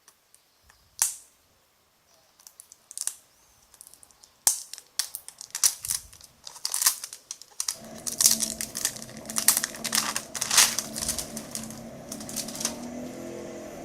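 Handling of a phone and its retail box: scattered clicks and taps, then a quick run of clicks and rustles. About halfway through, a steady hum with a few low tones comes in underneath.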